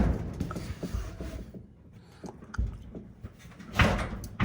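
Scattered knocks and handling noises as a clothes dryer is pushed back toward the wall, its metal duct extension sliding into the periscope vent connection, with a louder scrape near the end.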